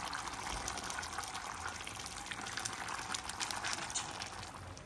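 Thick brown gravy of stewed chicken bubbling in a wide pan on the stove: a dense crackle of small pops as it simmers down. The popping drops away near the end.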